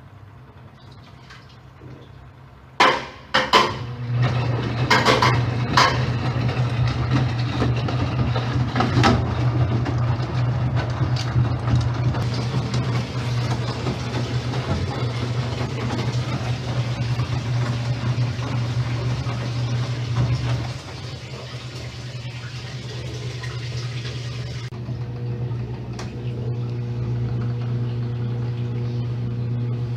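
Enxuta washing machine running: a few sharp knocks about three seconds in, then its motor starts with a steady low hum under a wash of water sloshing, settling a little quieter about two-thirds of the way through.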